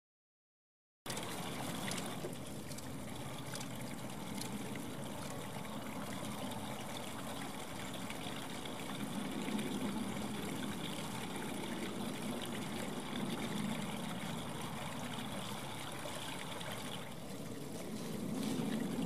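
Silence, then about a second in a steady rushing background noise starts and holds throughout, with no turkey calls heard.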